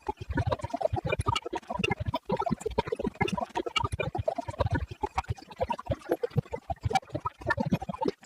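TV glitch sound effect: audio chopped into rapid stuttering fragments that cut in and out several times a second.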